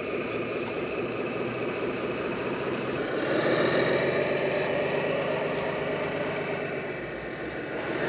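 Radio-controlled hydraulic construction models running, a steady mechanical engine-like drone from their hydraulic pump and motors. It gets louder about three seconds in, while the 8x8 dump truck raises its tipper bed.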